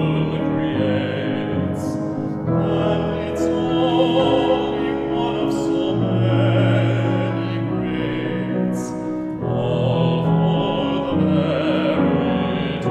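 A baritone singing a classical song in operatic style, with a wide vibrato, in several long phrases over piano accompaniment.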